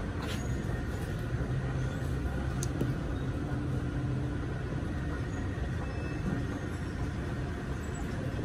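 Steady low rumble of indoor room noise, with a few faint clicks.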